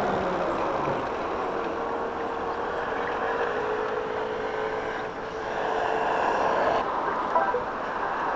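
Riding noise on a Gogoro electric scooter in city traffic: a steady rush of wind and road noise, with a thin steady whine.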